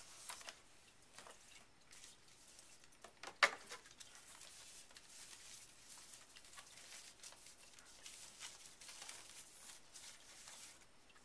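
Packaging rustling and crinkling as a camcorder is taken out and handled, with scattered small clicks and one sharp click about three and a half seconds in.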